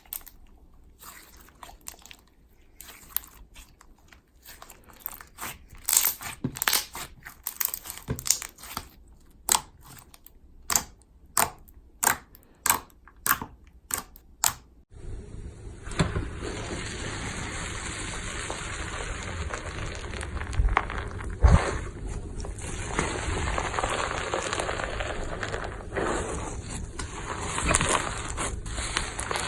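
Slime being kneaded and squeezed by hand: sharp sticky pops and crackles, a fairly even run of them a little under two a second, then about halfway in a denser squishing over a steady hiss with occasional louder pops.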